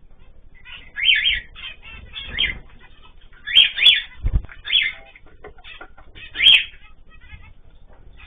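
Pet cage birds calling: about six loud, short, shrill calls stand out over a background of fainter chirping, with a soft low thump about four seconds in.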